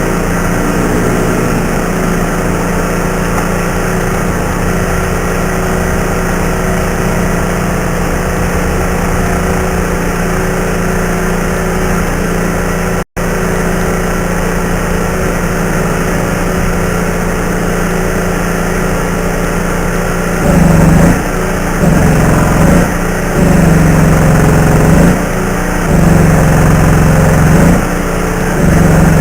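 A machine running steadily with a constant hum, with an engine-like character. In the last third it comes in five louder surges, each a second or two long, rising in pitch at the start and falling away at the end.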